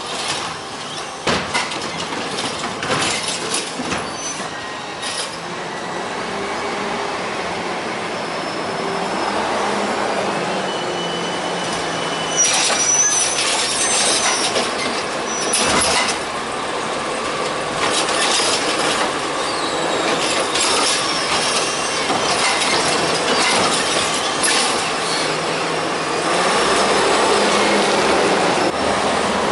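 CCC LET2 garbage truck with a Heil Rapid Rail automated side-loader at work: its natural-gas engine runs steadily while the arm tips a cart into the hopper, with repeated metal clanks and bangs. A brief high squeal comes around the middle as the truck pulls up to the next carts.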